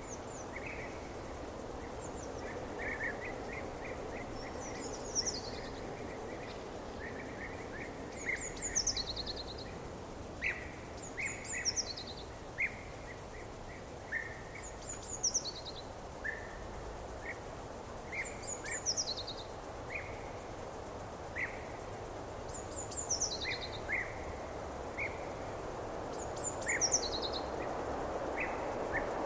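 Forest ambience: a bird repeats a short, high, falling song phrase every few seconds, while other birds give short chirps, over a steady background rush.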